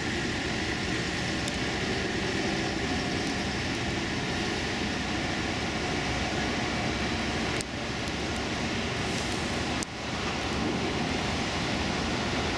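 Steady rushing outdoor noise of heavy rain with distant highway traffic, with no single car or machine standing out. The level drops sharply twice near the middle and quickly comes back.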